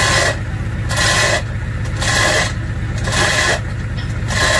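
Propeller shaft of a fishing boat being hauled into its stern tube in strokes: a rasping scrape about once a second, five times, over a steady engine hum.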